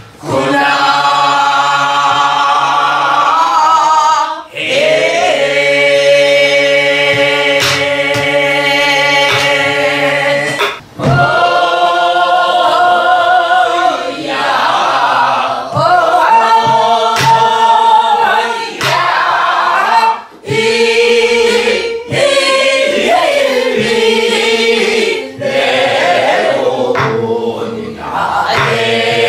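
Group of men and women singing a Namdo folk song in unison, in long held notes with a wide, wavering vibrato, pausing for breath every few seconds. A few sharp strokes on a buk barrel drum keep the rhythm.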